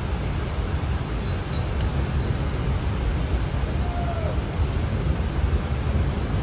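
Steady rushing of floodwater, mixed with wind rumbling on the microphone.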